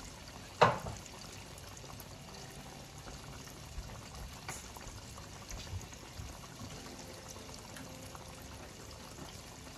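Breaded pork cutlets deep-frying in a pot of oil, a steady sizzle. A sharp click comes about half a second in, with a few fainter clicks later.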